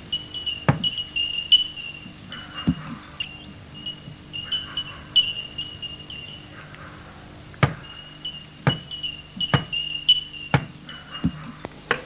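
Axe blows chopping into timber: about eight sharp chops, irregularly spaced, with a cluster near the end. Behind them runs a steady background of high, repeated bird chirps.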